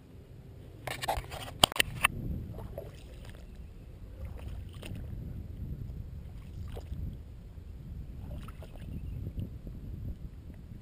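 Footsteps wading through shallow water, sloshing unevenly, with a few sharp clicks a second or two in.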